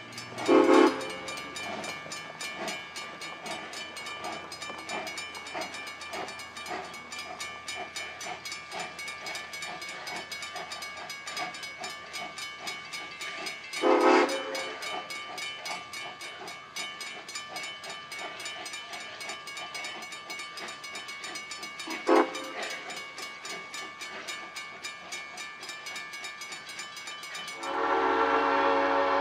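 Baldwin steam locomotive's whistle giving three short blasts, about a second in, near the middle and about two-thirds through, over a crossing bell ringing at a fast even beat. Near the end a longer, louder whistle blast starts and holds.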